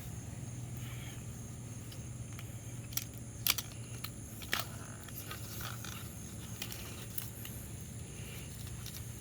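A few short, sharp cracks and rustles of corn stalks and husks being handled as an ear of corn is pulled down, over steady insect trilling and a low hum.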